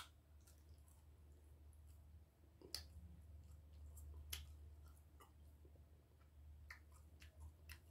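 Faint close-up chewing, with soft mouth clicks coming every second or so over a low steady hum.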